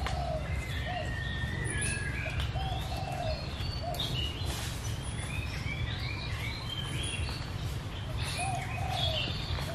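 Several birds chirping and calling, with short sweeping notes throughout and a few lower, shorter calls now and then, over a steady low rumble.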